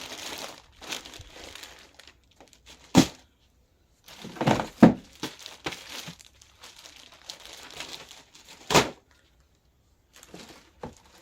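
Plastic packaging crinkling and rustling as boxed parts are handled and unwrapped, with three sharp knocks.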